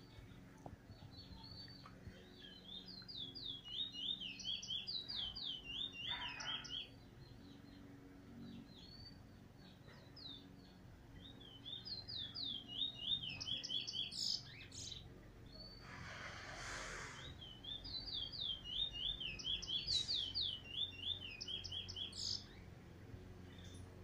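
A caged songbird singing three loud phrases, each a quick run of about eight to ten down-slurred whistled notes lasting several seconds, with softer single calls in between. A brief rushing noise comes about sixteen seconds in.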